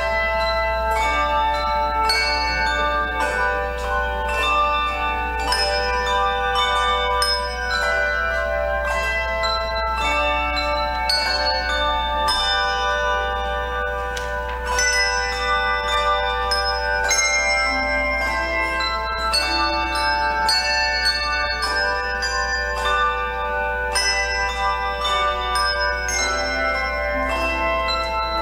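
Handbell choir playing a lively piece: many handbells struck in chords and quick runs, each note ringing on over the next. A steady low hum sits underneath.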